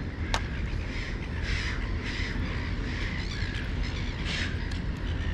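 A series of short, harsh crow-like caws, repeated every half second to a second, with a single sharp click about a third of a second in.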